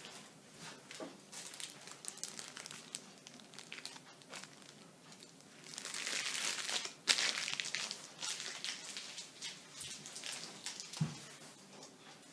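Crinkling and rustling with scattered light clicks, like something being handled. About six seconds in comes a louder, hissing rustle that ends in a sharp click, and there is a soft thump near the end.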